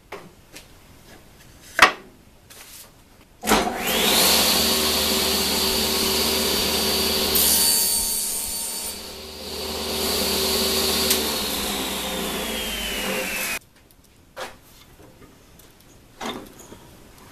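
Table saw starting up with a quick rising whine, ripping through a half-inch plywood piece for several seconds, then winding down with a falling whine. A few sharp knocks come before it starts and light clicks after it stops.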